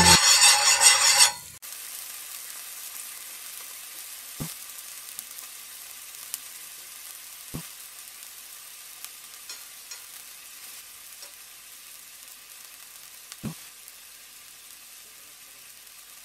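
Butter sizzling on a hot flat griddle pan as pav buns toast in it, a steady sizzle that slowly fades, with three light knocks against the pan. Music plays for the first second and a half and cuts off suddenly.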